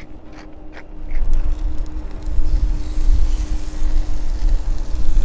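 A hand pepper grinder is turned a few times, clicking about three times a second, and stops after about a second. Then strong wind buffets the microphone with a gusty rumble, the loudest sound, over a hiss of chicken breast beginning to sizzle on a hot ridged grill pan.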